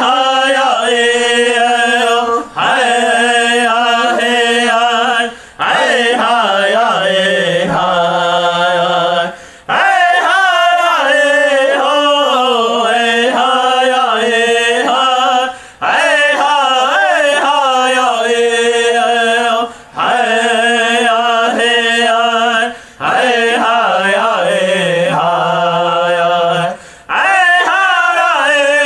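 Lakota/Dakota prayer song sung as a chant with no accompaniment. The singing comes in long, gliding phrases broken by short gaps every three to six seconds.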